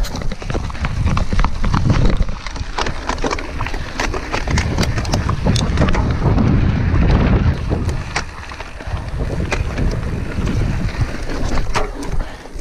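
Mountain bike riding over a gravel forest track: wind rumbling on the action camera's microphone, with many sharp clicks and rattles from the bike and the stones under the tyres.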